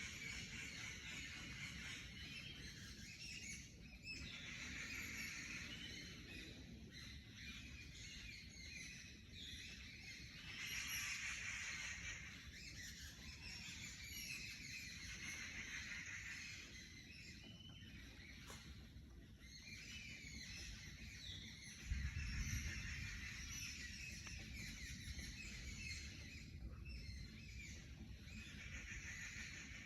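Several forest birds singing and chirping at once, with overlapping trills and tweets. Beneath them runs a low rumble that grows louder about two-thirds of the way through.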